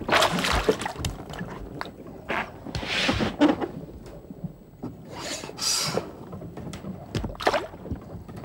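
A hooked largemouth black bass splashing and thrashing at the water surface beside the boat as it is played in, in about four bursts of splashing a couple of seconds apart.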